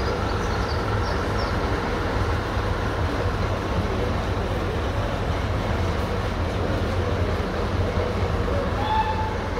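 First-generation British Rail diesel multiple unit idling at the platform: its underfloor diesel engines make a steady low rumble.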